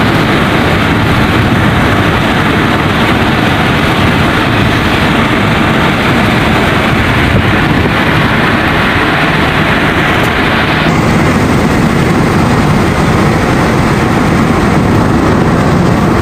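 Wind and road noise inside a moving Fiat Uno camper car: a steady, loud rush with no distinct engine note standing out.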